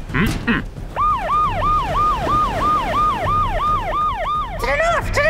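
Siren of a rescue boat, a repeating up-and-down wail of about three cycles a second that stops shortly before the end.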